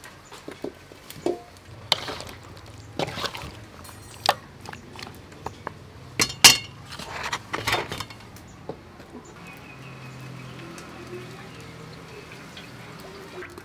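Metal pans and utensils clinking and knocking for several seconds, loudest about six and a half seconds in. Then cooking oil poured from a bottle into a metal wok in a steady stream.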